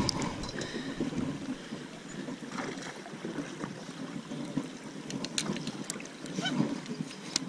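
Steady rush of river water and wind noise around a small fishing boat, with a few sharp clicks from handling.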